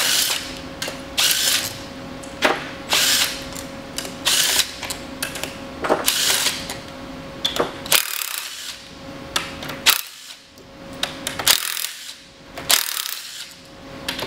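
Cordless power driver run in short bursts, spinning out the 12 mm bolts from the front of a Toyota A340 automatic transmission, with sharp clicks between runs. The bursts come close together at first and are more spaced out in the second half.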